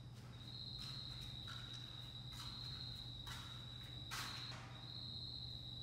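A cricket's steady high trill that breaks off briefly twice, with soft footsteps about once a second.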